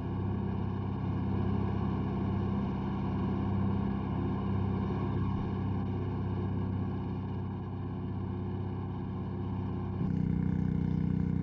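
Steady engine drone that shifts to a different pitch and grows slightly louder about ten seconds in.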